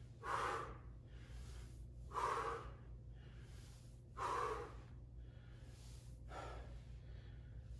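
A man breathing hard through bodyweight squats: four sharp exhalations about two seconds apart, one with each squat, the last one weaker.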